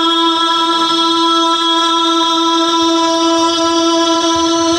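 A PA sound system putting out a loud, steady held tone with a stack of overtones that does not change pitch, with faint wavering music beneath it.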